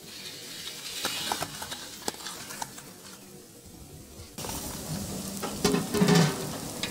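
Hot oil sizzling with scattered crackles as mutton kola urundai (spiced mutton balls) deep-fry; it grows louder about four seconds in.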